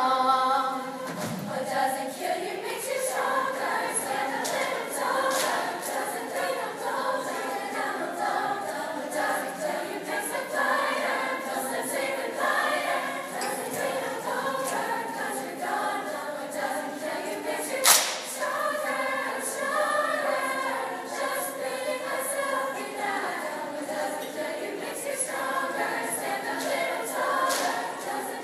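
A large choir of mostly female young voices singing together. A single sharp knock cuts through about eighteen seconds in.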